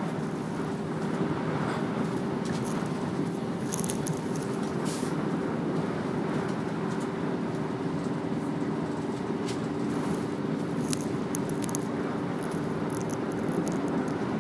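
Moving passenger train heard from inside the carriage: a steady running noise of wheels on the rails with a constant low hum, and scattered light clicks and rattles.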